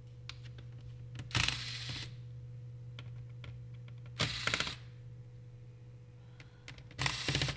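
Electric screwdriver backing out the laptop's motherboard screws: three short bursts of rapid clicking, each about half a second long, a few seconds apart.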